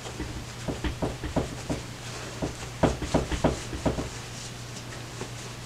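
Handling noise from Ankara cloth being rolled and tucked into a headwrap by hand: a cluster of soft, irregular taps and rustles from about one to four seconds in, over a low steady hum.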